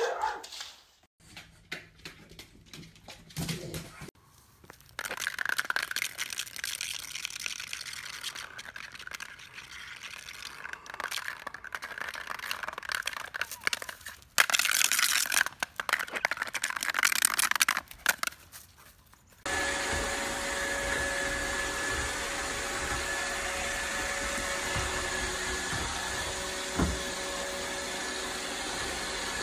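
Uneven outdoor hiss with a louder rushing stretch a little past the middle. From about two-thirds in, a robot vacuum cleaner runs with a steady hum and a faint whine until the end.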